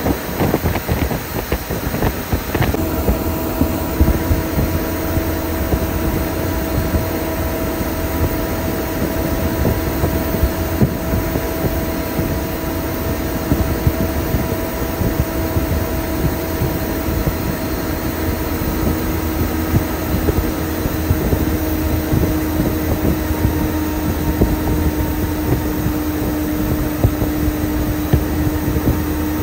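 Air-conditioned intercity bus at cruising speed, heard from inside the cabin: a steady rumble of engine and road noise, with a steady droning hum coming in about three seconds in.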